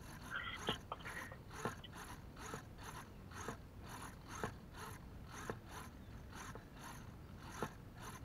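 Hobby RC servos on several receivers driving their arms back and forth, faint gear whirring in a steady rhythm of short pulses about twice a second, with a sharper click about once a second.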